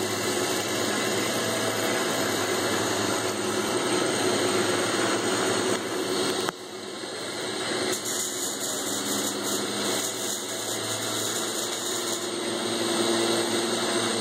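Small metal lathe running steadily, drilling into a spinning metal workpiece from the tailstock: motor and spindle noise with the cutting sound of the drill. The level drops sharply about six and a half seconds in, then builds back.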